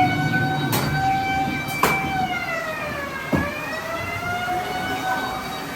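A siren wailing in a slow rise and fall, with three sharp cracks over it.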